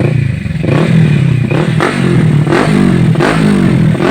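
Kawasaki Ninja 650's parallel-twin engine breathing through an aftermarket Daeng 4 muffler, revved in a series of quick throttle blips over idle. Its pitch rises and falls about five or six times.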